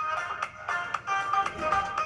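Background music: a quick melody of short, bright pitched notes.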